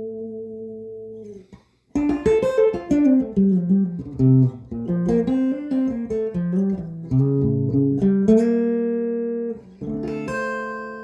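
Electric guitar with Seymour Duncan Zephyr humbucker pickups. A chord rings out and fades away, then after a short pause a run of single-note phrases is played. A chord is held about eight seconds in, and another chord rings on near the end.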